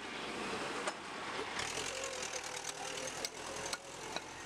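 Steady roadside traffic noise with a vehicle engine running, and a few light sharp knocks.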